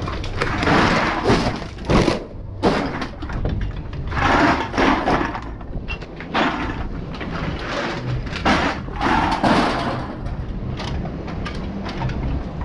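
Bags of empty plastic bottles and cans crinkling and clattering as they are handled in the back of a box truck, in irregular bursts with a few knocks.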